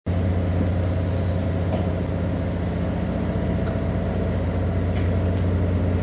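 Diesel machinery of a Japan Coast Guard patrol vessel running at idle alongside the quay: a steady, unchanging low drone with a deep hum.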